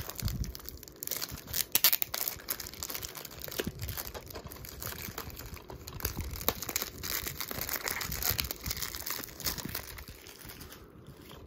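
Clear cellophane shrink-wrap being peeled and pulled off a plastic DVD case, crinkling and crackling irregularly. It is loudest in the first couple of seconds and dies down near the end.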